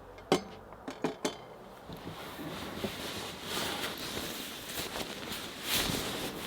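Four sharp clinks of tableware being handled in the first second or so, followed by several seconds of rustling and scraping that swells briefly near the end.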